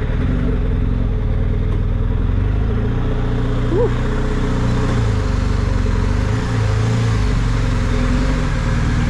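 BMW R 1250 GS's boxer-twin engine running at low revs as the motorcycle rolls slowly in second gear.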